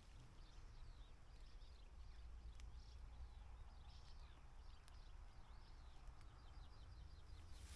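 Faint birdsong: a small bird repeating short, high, arching notes that come faster near the end, over a low steady rumble.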